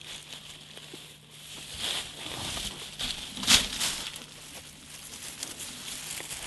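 Dry grass rustling and crackling as a person crouches in it and parts it by hand, with a sharp crunch of dry stems about three and a half seconds in.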